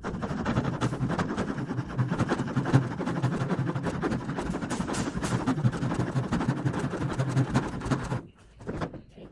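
Leatherman Surge's folding saw blade sawing back and forth through wood, steady sawing noise that stops about eight seconds in.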